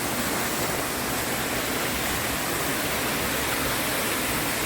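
Steady rush of a waterfall's water pouring over rock.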